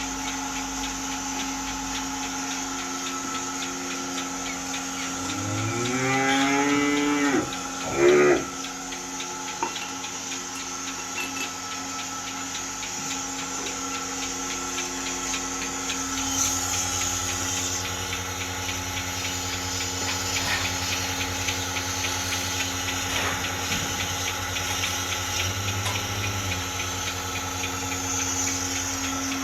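A cow moos: one long call rising in pitch about six seconds in, then a short loud call just after. Underneath, a milking machine's motor hums steadily.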